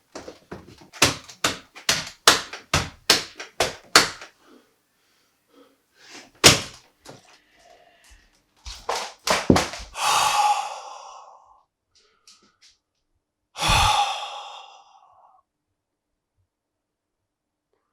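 A cheap keyboard being banged hard against a surface until it breaks: a quick run of heavy thunks, about two to three a second for four seconds, then a few more blows and two longer noisy crashes.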